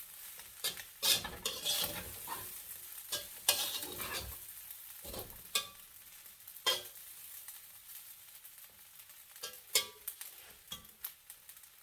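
Fried rice being stirred in a hot pan over a steady sizzle, with irregular knocks and scrapes of the stirring. The stirring is busy for the first few seconds, then thins out to occasional knocks.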